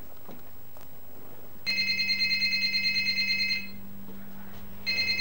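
Telephone ringing twice with a fast trilling ring. Each ring lasts about two seconds, with a pause of just over a second between them; the first starts about a second and a half in.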